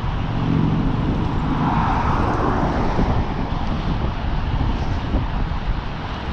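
Steady wind noise buffeting the microphone of a cyclist riding a fixed-gear bike, with a brief swell of rushing noise about two seconds in.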